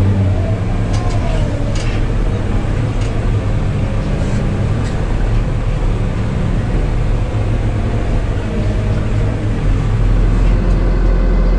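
New Holland RG140B motor grader's diesel engine running steadily, with a few light knocks in the first seconds. About ten seconds in it grows louder, its lowest tone stronger.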